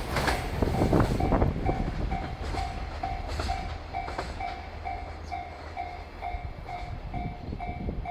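Koki container wagons of a freight train clacking over rail joints, the clacks spaced out and fading as the train moves off. Over them a Japanese level-crossing warning bell rings steadily, about two dings a second.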